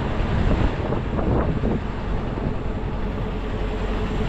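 Steady low rumble of vehicle engines with wind on the microphone. A faint steady hum comes in about halfway through.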